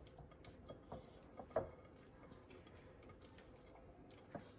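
Faint, irregular clicks and taps of a spatula against a glass mixing bowl as chicken pieces are stirred in a wet ketchup marinade, with one louder knock about one and a half seconds in.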